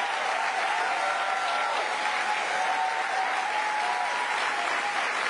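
A large crowd applauding steadily, with a few voices cheering over the clapping.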